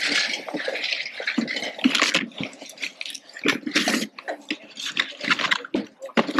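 Cardboard box being picked up, handled and opened: irregular rustling and scraping, with many short scuffs and rubs.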